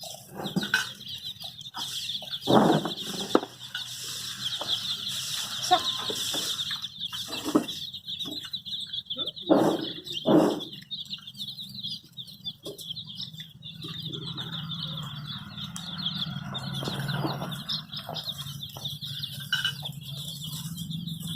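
A brood of baby chicks peeping continuously in a dense, high-pitched chorus, broken by several loud knocks or bumps in the first half.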